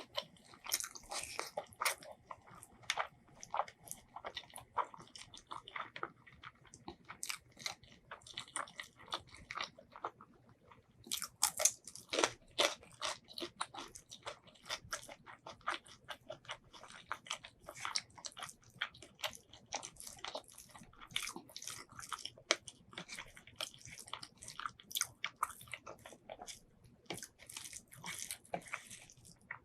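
Close-miked chewing and biting of braised pork ribs and white rice: a dense, irregular run of wet clicks and smacks, louder for a couple of seconds near the middle.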